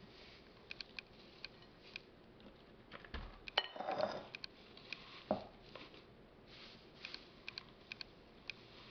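Dried bitter melon leaves rustling and crackling as they are scooped and packed by hand into a clear blender cup. Scattered small clicks run throughout, along with a few knocks of the cup against a glass mixing bowl; the loudest comes about four seconds in and another about a second later.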